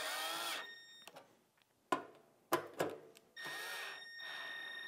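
Cordless drill/driver running twice to drive self-tapping screws into sheet metal: one run ends about half a second in and a second starts about three and a half seconds in, with a couple of sharp clicks in between.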